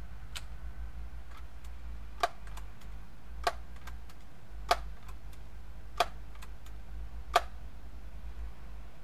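Daisy PowerLine 901 multi-pump pneumatic air rifle being pumped: five sharp clicks about a second and a quarter apart as the pump forearm is snapped shut on each stroke, with fainter clicks between.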